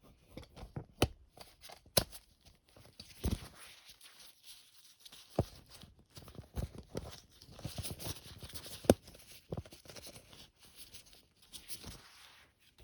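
Handling noise: scattered irregular clicks and knocks with rustling between them, the sharpest knocks about two seconds in and near nine seconds, as objects are picked up, moved and set down.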